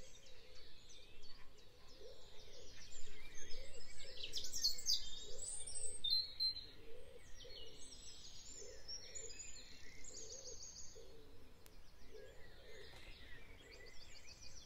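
Birds chirping and calling over steady outdoor background noise, with a low note repeating about once a second underneath.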